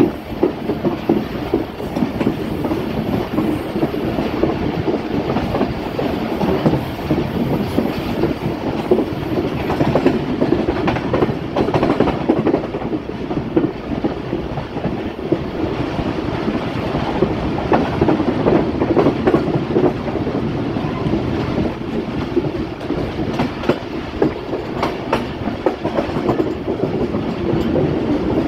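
Passenger train running, heard from the coach: a steady rumble with the wheels clattering over the rails in a continual clickety-clack.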